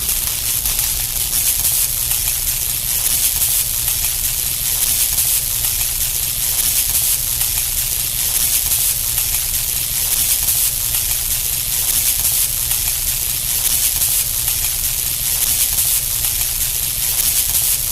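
Steady, even hiss with a low rumble beneath it, unchanging throughout.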